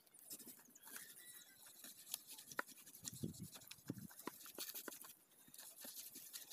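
Faint scraping and small clicks of a knife slicing raw pork off a pig carcass, with crinkling of the plastic sheet beneath it. A brief low sound comes about three seconds in.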